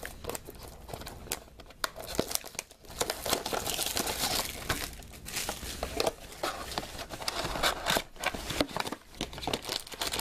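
Plastic shrink-wrap crinkling and tearing as it is stripped off a cardboard trading-card box, an irregular run of crackles and small sharp clicks.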